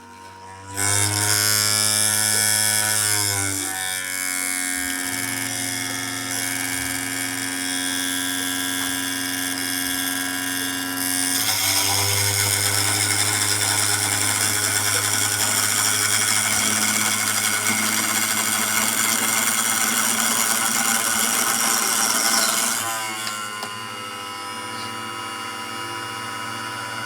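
Small electric motor of a homemade lathe starting up and running with a steady hum. From about 11 seconds in a louder rasping hiss joins it, a tool cutting the spinning fishing-float blank, and stops a few seconds before the end, leaving the motor running alone.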